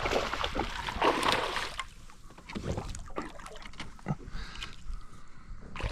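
A hooked bass splashing at the side of a kayak as it is landed, followed by quieter knocks and rustling of handling.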